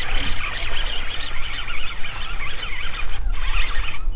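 Baitcasting reel being cranked as a hooked largemouth bass is reeled in, with wind rumbling steadily on the microphone.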